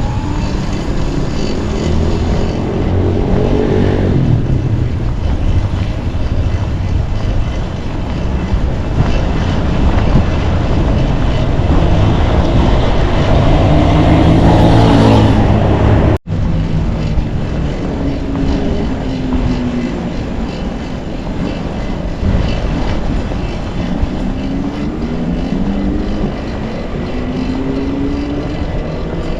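Street traffic: motor vehicle engines running close by, their pitch rising as they accelerate and falling away, over a steady low rumble. The sound cuts out abruptly for a moment about sixteen seconds in.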